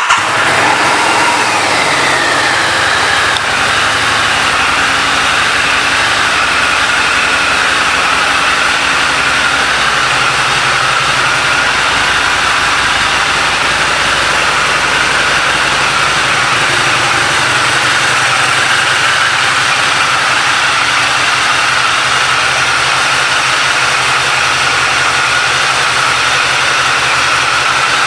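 2006 Harley-Davidson Street Rod's liquid-cooled Revolution V-twin idling just after a start. The revs ease down over the first few seconds, then it settles into a steady idle.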